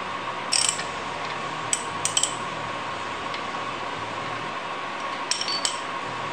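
Sharp metallic clicks and clinks of a socket wrench on bolts: a few about half a second in, more around two seconds, and a couple near the end, over a steady hiss.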